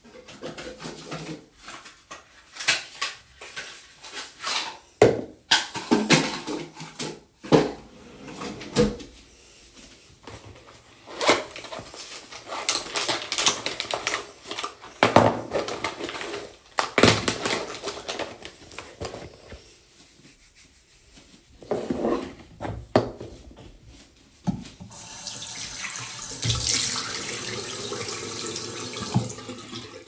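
Toiletries being handled and set down on a bathroom counter: a run of short knocks, rustles and clatter. About 25 seconds in, a bathroom sink tap is turned on and runs steadily.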